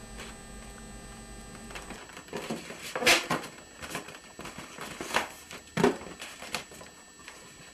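Latex modelling balloons rubbing and squeaking against each other and against the hands as a twisted balloon figure is handled and adjusted: a few short rubs and squeaks, the loudest about three seconds in, two more around five and six seconds.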